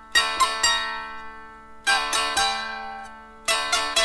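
Dulcimer strummed in three groups of three quick strokes, with steady drone notes ringing on between the groups.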